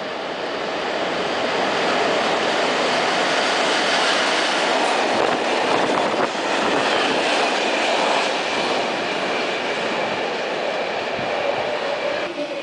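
SBB Re 4/4 electric locomotive hauling a work train past the platform: the rolling rumble of wheels on rail builds over the first two seconds, then a steady clatter and rumble as the locomotive and wagons go by, with a faint steady high whine from about six seconds in.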